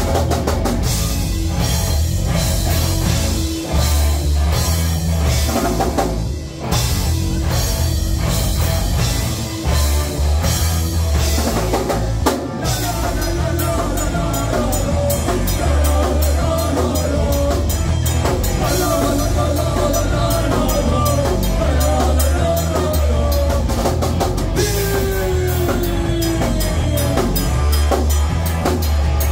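Live rock band playing a song on electric guitars and drum kit, with a steady drum beat and heavy low end under the guitar lines.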